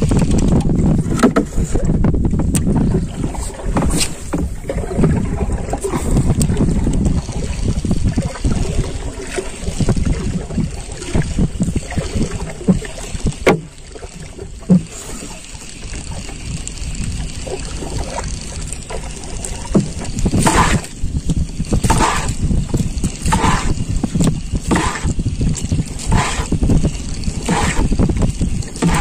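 Water lapping against a small wooden canoe's hull, with wind on the microphone. In the second half comes a run of short bursts about every second and a half.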